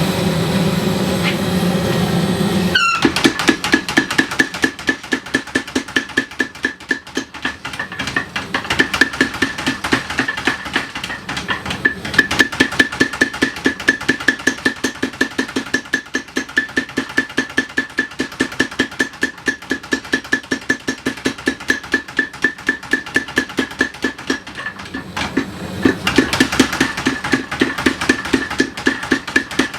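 Vintage 25 kg Sakamoto belt-driven power hammer striking a hot three-layer steel billet in a fast, even run of about four ringing blows a second, forge-welding the san-mai layers into one piece. It starts about three seconds in after a steady rushing noise and breaks off briefly near the end before hammering again.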